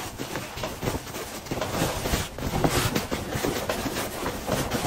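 Heavy No. 11 cotton canvas being handled: rustling and brushing as the lining is shifted and smoothed over the bag body, in uneven strokes.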